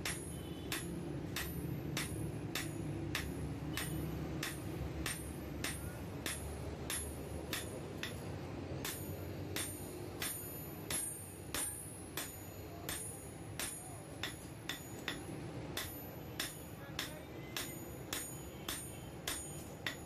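Hand hammer striking a steel knife blank, made from an old file, on a steel anvil block: steady ringing metal-on-metal blows, about two a second.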